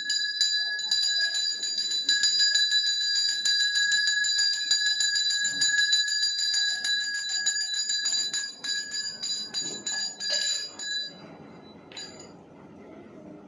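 Temple bell rung rapidly and continuously for about eleven seconds, then stopping, with one more short ring a second later.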